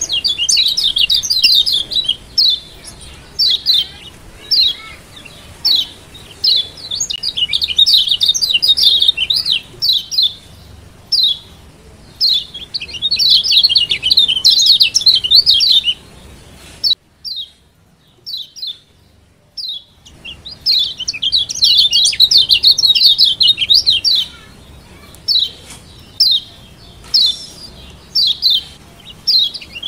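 Kecial kuning, the yellow white-eye of Lombok, giving 'ciak' calls: bursts of rapid high chirps, many a second, broken by short pauses. Just past the middle there is a pause of about three seconds with only a few single chirps.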